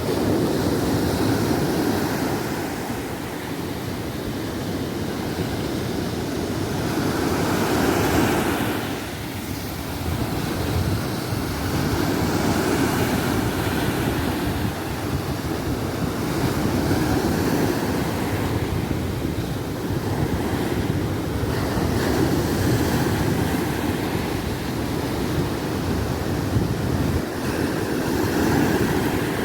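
Small ocean waves breaking on a sandy beach and washing up the shore, the surf swelling and easing every few seconds.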